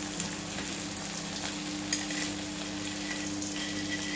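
Hot oil sizzling in a wok with leftover bits of the fried fermented-rice coating, with scattered small crackles and pops over a steady low hum.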